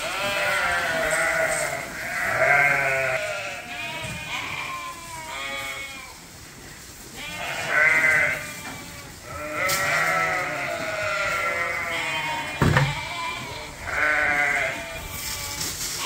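A flock of ewes bleating continuously with many overlapping calls, waiting at the feeder for their grain. A couple of sharp knocks come through, the louder one about 13 seconds in.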